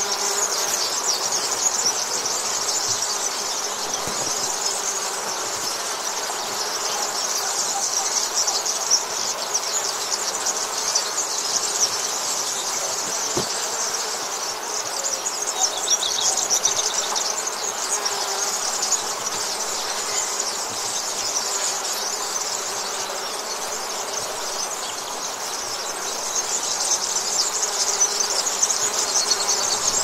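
Bees buzzing under a dense, continuous chorus of high chirping that keeps a steady level throughout.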